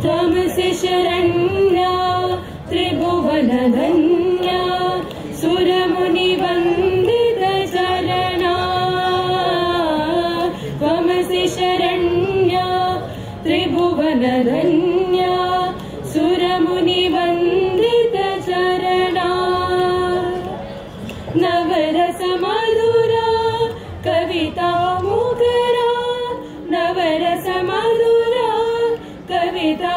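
Students singing a devotional invocation to the goddess Saraswati in Indian classical style: one melodic line of long held notes with sliding, ornamented turns between them, and short pauses for breath.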